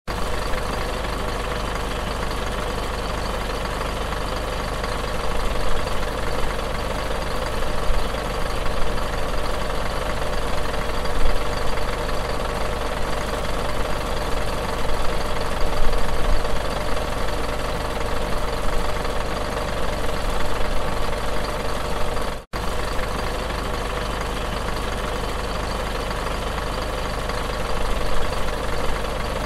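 Bus engine idling steadily, with a steady low rumble and drone. The sound drops out for an instant about two-thirds of the way through, then resumes unchanged.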